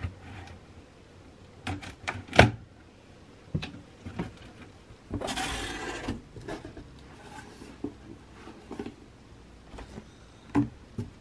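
Cardboard box being unpacked: scissors cutting through the packing tape, then the cardboard flaps pulled open with a burst of rustling about five seconds in, and packaged items shifted inside the box. Scattered taps and knocks throughout, the sharpest about two and a half seconds in.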